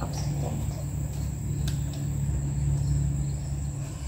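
Small single-cylinder four-stroke engine of a 2006 Polaris Sportsman 90 youth ATV running at a steady idle on its freshly fitted replacement carburetor.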